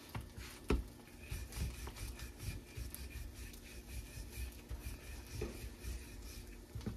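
Quiet kitchen handling sounds: light rubbing and a few soft knocks as parathas are handled on a griddle, over a faint low hum.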